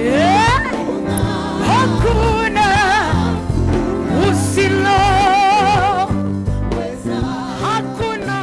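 Gospel praise song: a solo voice sweeps up in pitch and holds long notes with wide vibrato over a band with a steady, rhythmic bass line.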